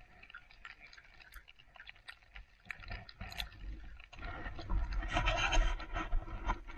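Wheeled suitcases handled on packed snow. Scattered small clicks and scrapes come first; about four seconds in, a louder scraping rumble lasts about two seconds.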